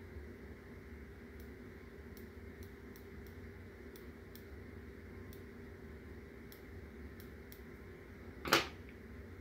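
Small scissors snipping through a leathery ball python eggshell, a string of faint, irregular clicks over a steady low hum. One brief louder sound comes about eight and a half seconds in.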